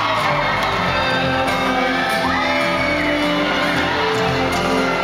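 Live pop ballad from the audience: acoustic guitar and singing in a large hall, with a whoop from the crowd.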